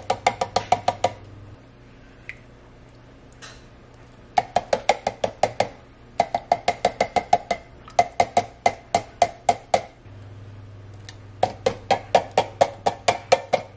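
A metal fork rapidly tapping and scraping inside a steel Campbell's soup can, the can ringing with each stroke, to knock out condensed cream of chicken soup. The taps come in five quick runs of about eight a second, with short pauses between.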